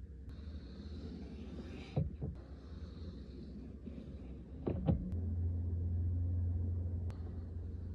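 Gas-station windshield squeegee swiping across the glass and knocking against it, heard from inside the car, with a few sharp knocks about two and five seconds in. A low steady hum gets louder about five seconds in.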